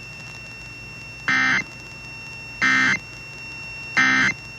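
Emergency Alert System end-of-message (EOM) SAME data bursts: three short, buzzy digital tone bursts about a second apart, marking the end of the alert.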